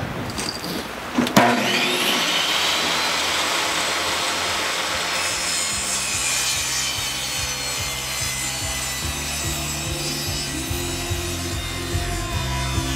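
Portable table saw starting up about a second and a half in, then running steadily as it rips through an OSB roof-sheathing panel. Background music comes in about halfway through.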